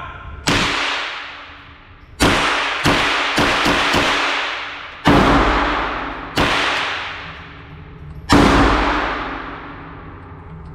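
Six gunshots fired at an irregular pace over about eight seconds, each one ringing and echoing as it fades, with two fainter cracks in between.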